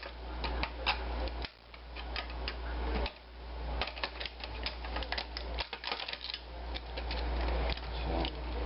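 Irregular light clicks, taps and rattles of an opened LCD monitor's plastic and metal parts being handled and pried apart, over a low steady hum.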